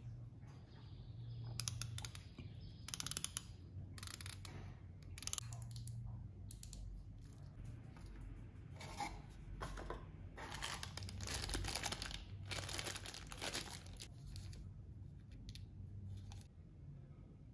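Cardboard packaging and plastic wrapping being handled: boxes sliding and tapping, and plastic crinkling in a series of short bursts. A longer stretch of rustling comes a little past the middle.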